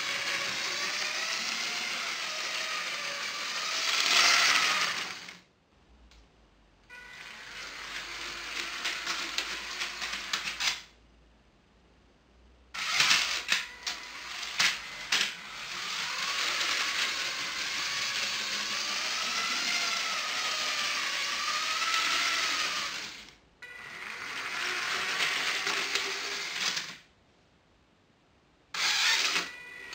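Vintage 9V Lego train motors running along the track, a whine that wavers in pitch over a rattling rumble. It stops dead three times, and a burst of sharp clicks comes just as it starts up again after the second stop.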